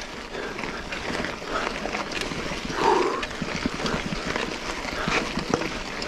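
Mountain biker breathing hard while climbing a steep trail, with a loud gasping breath about three seconds in, over the clicks and rattles of the bike on rough ground.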